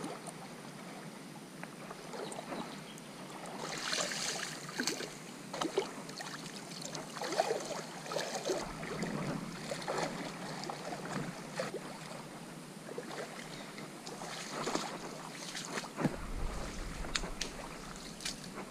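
Irregular sloshing and splashing of shallow water, with scattered light knocks and rustles, as an angler moves through the flats. A low rumble of wind on the microphone comes in near the end.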